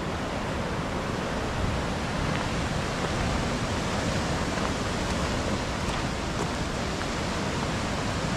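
Steady rush of ocean surf mixed with wind, an even noise that doesn't rise or fall.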